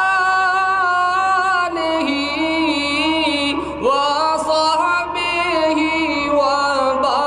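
A man chanting a naat unaccompanied into a public-address microphone. He sings long, held, ornamented notes in phrases of a couple of seconds each, with a new phrase starting about 2, 4 and 7 seconds in.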